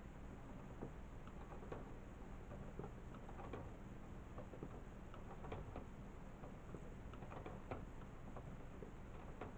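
Faint, irregular light clicking and ticking from a hand-worked plastic model rack-and-pinion windshield-wiper linkage, over a low steady hum.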